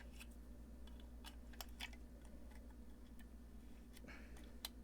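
Faint, irregular small clicks of a tool and metal hardware being handled and tightened on a guitar effects pedal kit, over a steady low hum.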